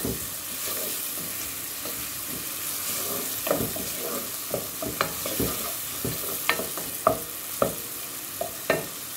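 Chopped onions, garlic and turmeric sizzling in olive oil in a nonstick pot, stirred with a wooden spoon that scrapes and knocks against the pot several times.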